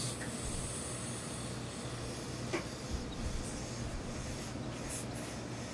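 Steady hum and hiss of steam pressing gear as a gravity-feed steam iron is worked over suit trousers, with a brief sharper hiss of steam at the start and again near the end, and a soft knock about two and a half seconds in.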